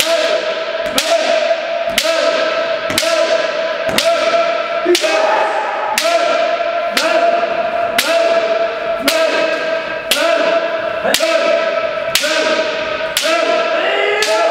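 Bamboo shinai cracking against kendo armour about once a second, each strike echoing, over long shouted kiai from several practitioners.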